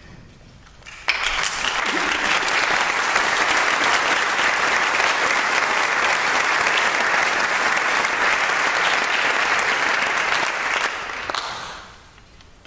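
Audience applauding in a hall, starting suddenly about a second in and dying away near the end.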